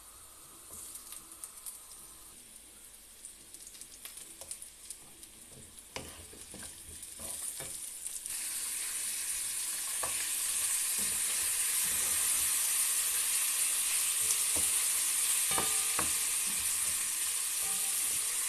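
Sliced onions sizzling gently in hot oil in a wok, with scattered knocks. About eight seconds in, raw chicken wings go into the pan and the sizzling jumps to a loud, steady hiss while a wooden spatula stirs them.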